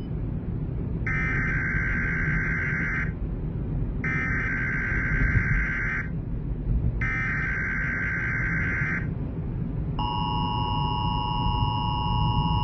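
Emergency Alert System SAME header: three bursts of screeching digital data tones, each about two seconds long and a second apart, over a steady low noise. About ten seconds in, the two-tone EAS attention signal starts and holds. Together they mark the start of a new emergency alert.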